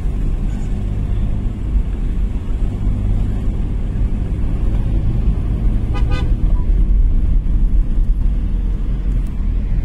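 Steady low rumble of engine and tyre noise inside a moving car's cabin, with a short vehicle horn toot about six seconds in.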